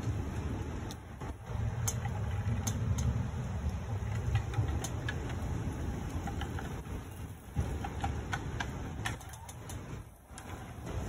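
Strong gusting wind buffeting the microphone: an uneven low rumble that swells and eases and drops away near the end, with scattered light clicks and rattles.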